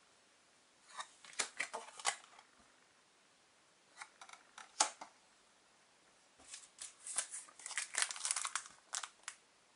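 Paper trading cards being handled, with short card-on-card flicks and rustles about a second in and again around four to five seconds. From about six and a half seconds a foil booster-pack wrapper crinkles as it is handled, getting busier toward the end.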